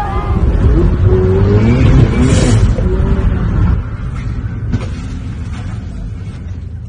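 Car running hard with a loud, heavy rumble that eases off about four seconds in.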